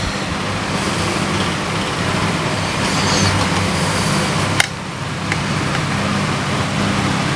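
Steady low hum with a rushing background noise, and a single sharp click about four and a half seconds in.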